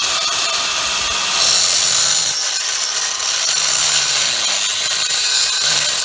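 A power tool running continuously under load, a hissing, grinding noise that grows louder and harsher a little over a second in.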